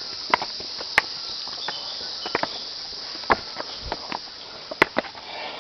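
Footsteps climbing stone steps, a series of irregular scuffs and taps. Under them is a steady, high-pitched drone of insects in the surrounding forest.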